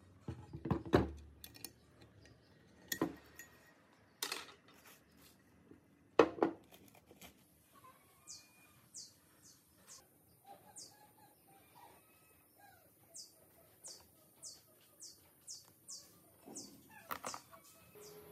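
A few sharp knocks and clicks as the painted blower housing and its parts are handled on a wooden workbench, the loudest about six seconds in. From about seven seconds a bird gives a long run of short, high chirps that fall in pitch, one or two a second, over a faint high hiss.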